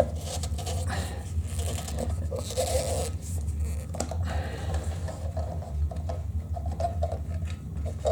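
Plastic lock nut being threaded by hand onto the toilet flush valve's threaded shank: irregular scratching and rubbing of plastic on plastic, over a steady low hum.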